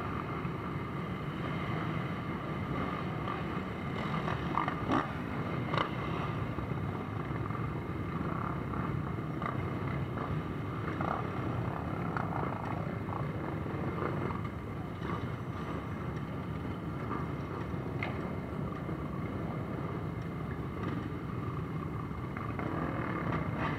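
Many off-road vehicle engines running together as a column of enduro motorcycles, followed partway through by quad bikes (ATVs), rides slowly past, a steady mixed engine sound with a few short sharp sounds in it.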